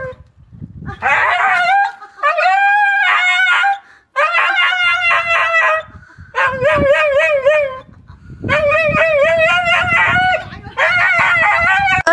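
Young German Shepherd howl-barking at a rooster: about six long calls with a wavering pitch, each a second or two long, with short gaps between.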